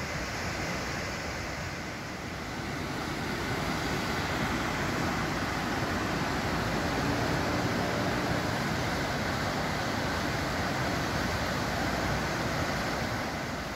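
River water rushing over rocks and through shallow rapids in a rocky gorge: a steady, even rush.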